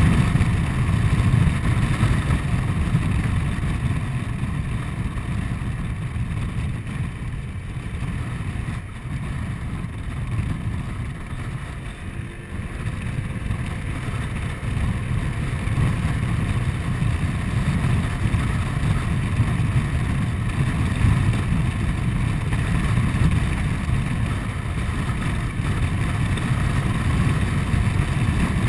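Honda Forza 125 scooter's single-cylinder engine running as it rides along, mixed with rushing wind on the microphone. It grows quieter for a few seconds near the middle, then builds again.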